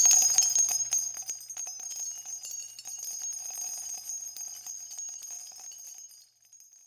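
Tinkling, jingling bell sound effect, a bright shimmer with many small chiming strikes that is loudest at the start and fades away over about six seconds.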